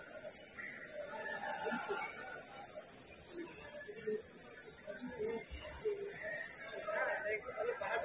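Cicadas singing in the trees: a loud, shrill, continuous buzz with a fast pulsing throb, swelling a little in the middle.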